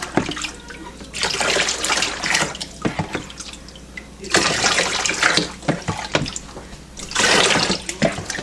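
Water running and splashing in three spurts of about a second each, with quieter gaps between, as a small puppy is rinsed during a bath.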